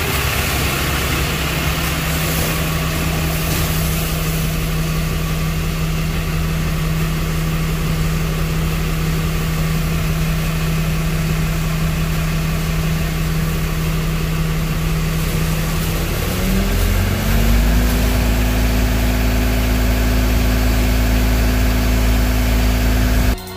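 Ram pickup truck's engine idling steadily, then rising about two-thirds of the way through to a higher, louder engine speed that it holds.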